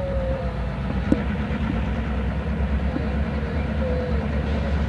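Canadian Pacific diesel locomotives working in a rail yard: a steady low engine rumble, with a thin wavering squeal over it and a single sharp click about a second in.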